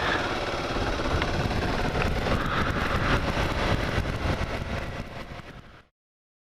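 2009 Kawasaki KLR 650's single-cylinder engine running on the move, with a steady rush of noise over it. The sound drops off a little near the end and then cuts off abruptly.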